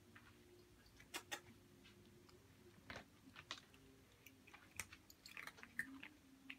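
Tabby cat crunching dry kibble: faint, irregular crunches and clicks.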